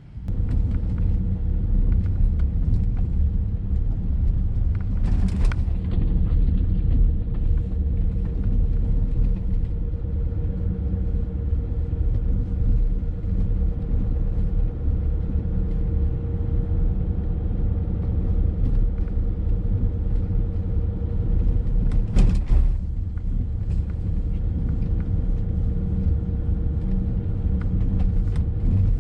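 Diesel BMW E70 X5 driving: a steady low rumble of engine and tyres with a constant drone, and two brief rushes of noise, about five seconds in and again after about twenty-two seconds.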